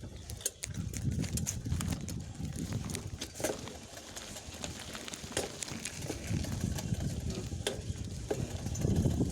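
Bicycle ride: a low rolling rumble with scattered sharp knocks, the knocking of a pedal that catches on the bike.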